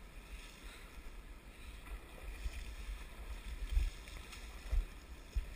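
Wind rumbling on the microphone in irregular low thumps, the strongest in the second half, over a faint steady hiss of river water.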